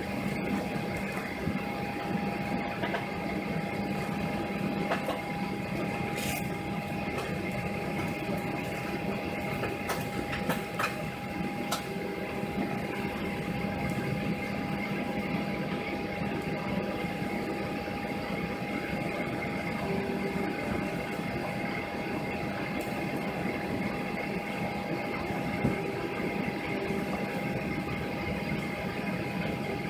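Steady cabin hum of a Boeing 737-800's air-conditioning and ventilation while parked, with a constant whine over a low drone and a few faint clicks around the middle.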